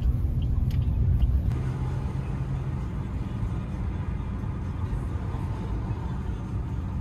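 Steady low rumble of vehicle noise, like a car on the move.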